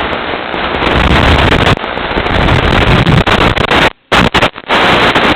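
Loud, steady rushing hiss with no clear tone, broken by a sudden brief cutout about four seconds in and a few shorter breaks near the end. It is the audio of a Nano QX FPV micro quadcopter's flight footage.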